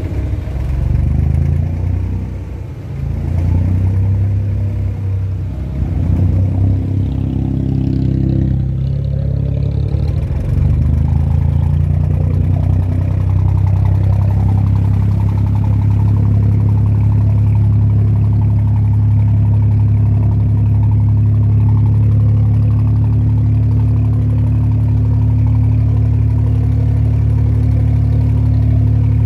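Abra water taxi's diesel engine running under way, its pitch shifting for the first several seconds, then settling into a steady, louder low drone from about ten seconds in.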